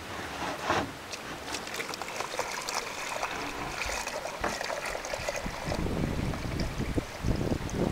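Water pouring from a plastic jug into a plastic tub, a steady splashing trickle.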